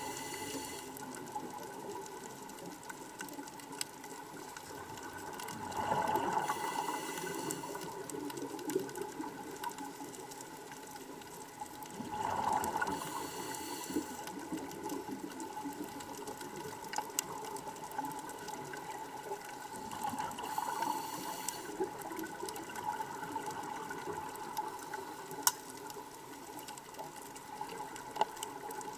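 Underwater sound of a scuba diver breathing through a regulator: three gurgling rushes of exhaled bubbles several seconds apart, over a steady underwater hiss with a few scattered sharp clicks.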